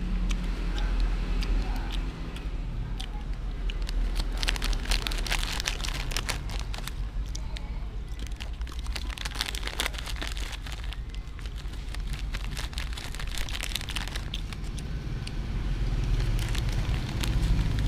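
Metallized plastic snack bag crinkling and crackling as hands squeeze and open it, in several bursts of sharp crackles, over a steady low hum.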